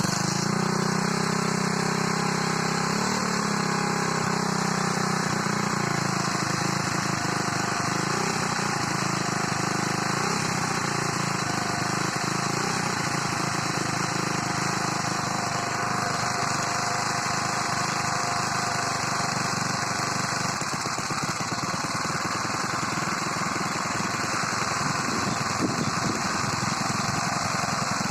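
Alpha 110cc moped's single-cylinder four-stroke engine idling steadily just after being started, with a slight change in revs about three seconds in.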